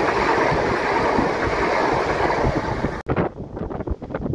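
Southern electric multiple-unit train running past along the platform, a steady rushing rail noise that cuts off suddenly about three seconds in. Wind buffeting the microphone follows.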